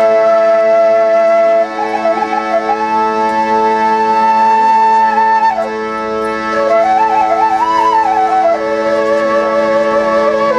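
Bamboo flute (bansuri) playing a slow melody of long held notes that slide up and down between phrases, over a steady drone.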